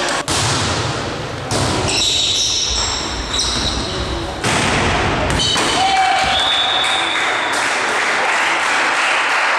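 Indoor volleyball being played in a large gym hall: players' voices calling, thuds of the ball being struck, and short high squeaks. The sound jumps abruptly several times.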